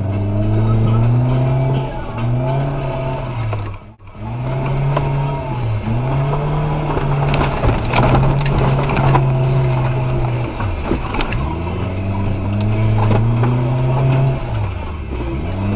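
Suzuki Jimny 4x4's engine revving hard under load off-road, the revs climbing and falling back about five times as the driver works the throttle, with scattered knocks and clatter around the middle.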